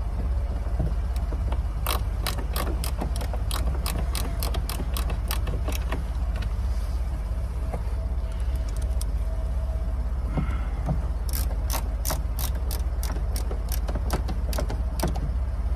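Ratcheting driver clicking at about three to four clicks a second as it turns a screw at the bottom of the door panel. There are two runs of clicks, with a pause of a few seconds between them.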